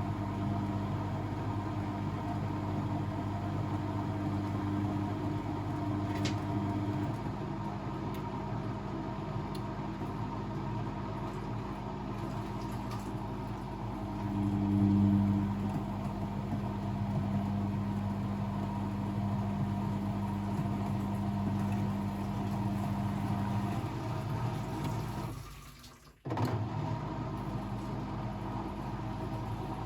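Blomberg WAF 7442 SL washing machine running mid-cycle: a steady motor hum with water noise. It swells briefly about halfway through, and nearly cuts out for a moment near the end before resuming.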